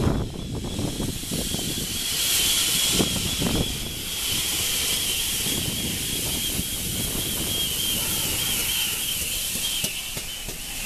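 Steam hissing from GWR Manor-class 4-6-0 No. 7812 Erlestoke Manor as it runs slowly into the platform. The hiss swells about two seconds in. A steady high-pitched squeal and a low rumble run beneath it.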